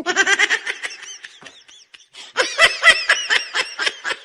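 Laughter in two quick runs of short, high-pitched 'ha' syllables, with a brief break about two seconds in.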